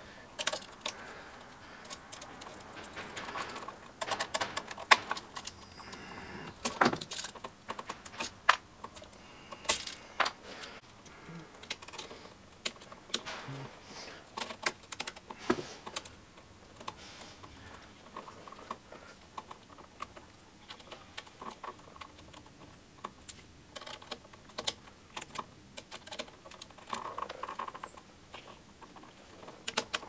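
Handling noise from wiring a GFCI receptacle: irregular clicks, taps and small rattles of copper wires and the plastic receptacle body being worked by hand.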